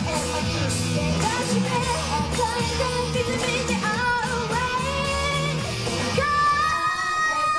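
Upbeat pop music with female singing, played loud through a live club PA. From about six seconds in, long notes are held.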